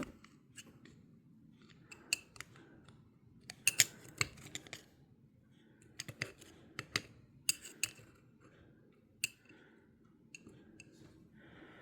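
Small metal parts of an Abumatic 150 spincast reel clicking and clinking as they are handled and fitted together. The clicks come scattered and in short clusters, busiest around four seconds in and again between six and eight seconds.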